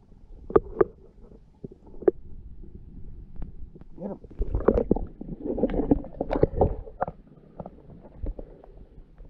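Muffled underwater sloshing and knocking picked up by a camera held under the creek water: a few sharp knocks in the first two seconds, then a busier stretch of churning water and bumps in the middle.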